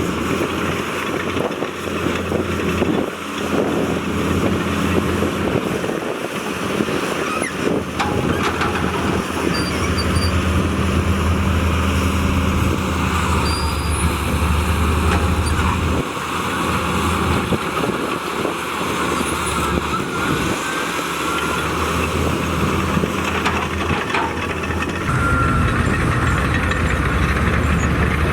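Diesel engines of heavy earthmoving machinery running at work, the engine note shifting up and down with load every few seconds.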